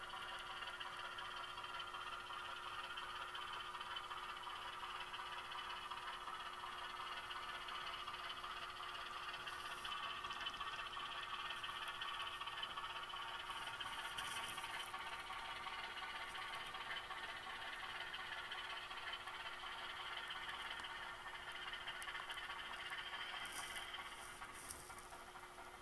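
HO scale model diesel locomotive's sound decoder playing a steady diesel engine sound through its small onboard speaker as the locomotive creeps along the track, with a few faint ticks near the middle and end.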